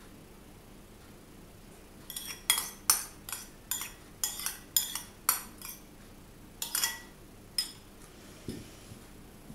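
Metal spoon clinking and scraping against a ceramic bowl while chocolate cream is scooped out: about a dozen sharp clinks in quick succession, starting about two seconds in and stopping near the end.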